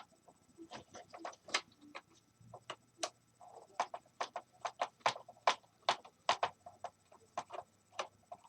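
Irregular sharp clicks, taps and small clatters of hand tools and the heater's metal and plastic parts being worked, a few a second, as the blower cage is prised at its bayonet attachments.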